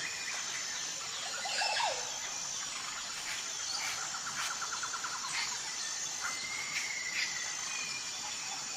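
Tropical forest ambience: a steady chorus of insects with birds calling over it, including a falling call about two seconds in, a fast trill around four to five seconds, and whistled notes near seven seconds.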